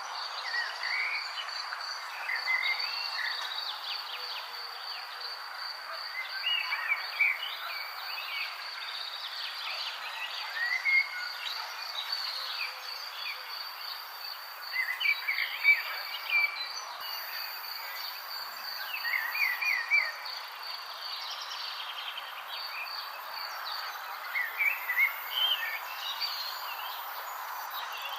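Nature ambience: a steady, fast-pulsing high insect trill, like a cricket, with birds chirping in short bursts over it and a constant background hiss.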